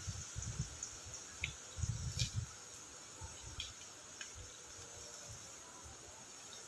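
Quiet rural field ambience: a faint, steady, high-pitched insect drone, with irregular low bumps during the first two and a half seconds and a few small clicks.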